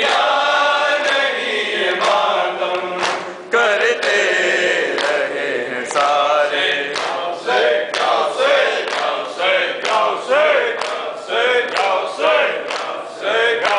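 A group of men chanting a noha, a mourning lament, led by a reciter on a microphone. Rhythmic chest-beating (matam) slaps keep time, about two a second.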